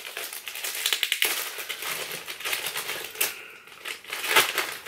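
A small plastic packet crinkling and rustling with irregular crackles as it is opened and handled by hand.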